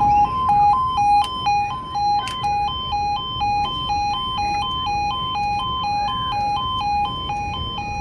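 Railway level crossing audible warning sounding, a two-tone alarm that alternates evenly between a lower and a higher pitch about twice a second as the barriers come down for an approaching train. A couple of sharp knocks come about one and two seconds in.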